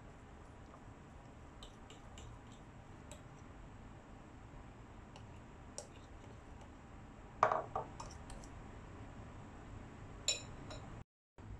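Metal whisk stirring gram flour batter in a ceramic bowl, with light clicks of the wire against the bowl. A louder clatter of knocks a little past halfway and one more knock near the end.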